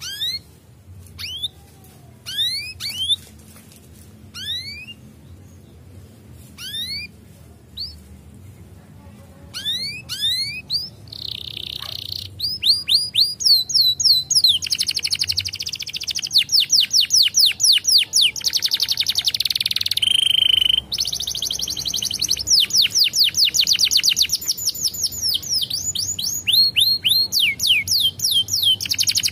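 Canary singing: scattered short rising chirps at first, then, from about eleven seconds in, a loud, fast continuous song of rapid trills and rolls.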